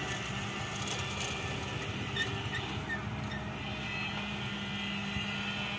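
An engine running steadily, a constant hum with a low rushing noise, with a few faint light clicks about two to three seconds in.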